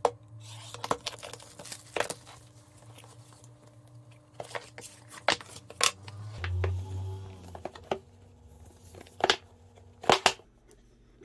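Cardboard and plastic packaging being unwrapped and handled: crinkling and tearing of wrap, then irregular scrapes and sharp taps of the cardboard box against the hands and the table.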